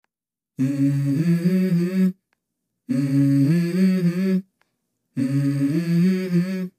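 Background music: a voice humming a short melody in three phrases of about a second and a half each, with dead silence between them.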